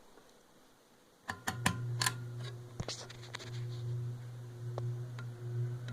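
Heritage ceiling fan switched on with a few sharp pull-chain clicks about a second in, then its motor starting up with a steady low electrical buzz and a few light rattles.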